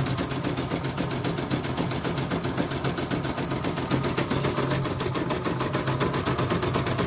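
Home embroidery machine stitching at speed, its needle bar striking in a rapid, even rhythm over a steady motor hum as the hoop carriage moves. This is a test run on a new rotary hook, bobbin case and presser foot, and the machine is running smoothly.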